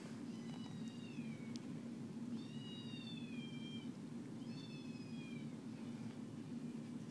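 Three high cat meows, each sliding down in pitch, spaced a couple of seconds apart, over a steady low hum.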